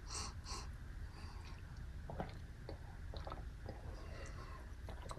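Faint mouth sounds of someone drinking and swallowing, with a few soft clicks over a low steady room hum.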